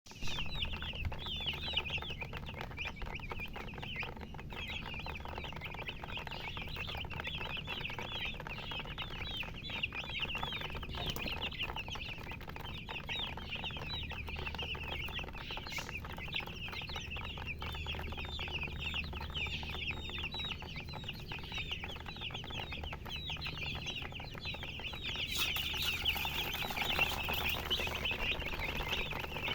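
A group of baby chicks peeping without a break: many short, high, downward-sliding chirps overlap, over a faint low hum. They grow a little louder a few seconds before the end.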